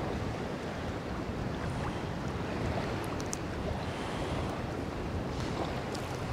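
Steady wind buffeting the microphone over small waves lapping at the shore, with a few faint ticks about three seconds in.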